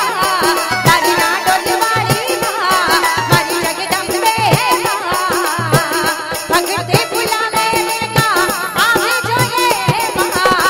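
Live devotional folk music (a Rajasthani bhajan): a woman's singing voice over fast, steady percussion with deep drum beats and a rattling shaker-like sound.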